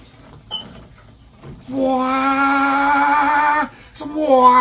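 A voice singing long held notes with vibrato: one from about two seconds in, then a short click, then a second note starting near the end.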